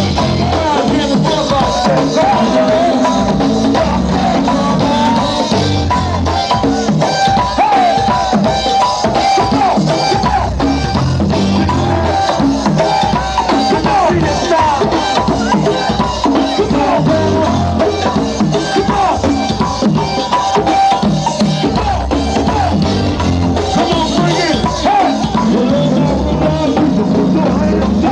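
Live go-go band playing loudly, with drum kit and hand percussion keeping a steady groove.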